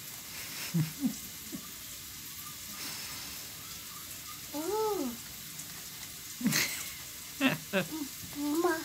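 A young child's brief hums and murmurs while eating, over a steady hiss, with a light click about two thirds of the way through.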